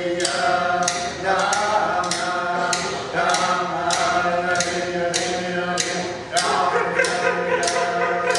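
Inupiaq frame drums struck together in a steady beat, a little under two strokes a second, under a group of voices chanting a sustained song.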